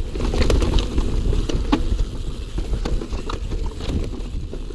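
Santa Cruz mountain bike rolling down a rocky dirt track: a steady rumble of tyres over stones with scattered clicks and rattles from the bike, growing quieter toward the end.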